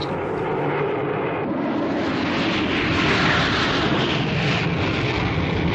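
Jet engine noise of an F-4 Phantom's twin J79 turbojets, a steady rush that grows louder about a second and a half in and stays loud.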